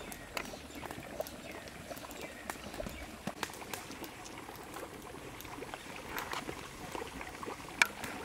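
Cooking sounds: scattered small clicks and crackles over a faint steady hiss, with one sharper click near the end.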